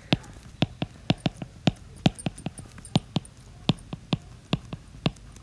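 Stylus tip tapping and clicking on a tablet screen while handwriting letters: sharp, irregular clicks, about four a second.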